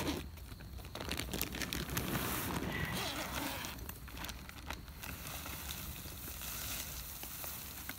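Scratchy rustling of a nylon carry bag as its zipper is worked open and a green mesh piece is pulled out of it, over a steady low wind rumble on the microphone.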